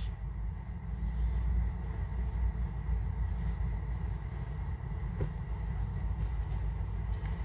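Steady low background rumble with a faint steady high whine above it; a single small click about five seconds in.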